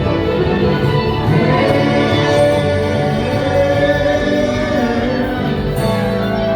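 Live band music with sung vocals, several voices holding long notes together in harmony.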